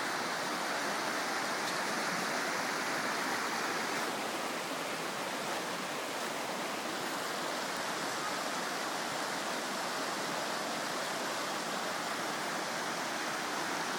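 Mountain creek rushing over and between boulders: a steady rush of water.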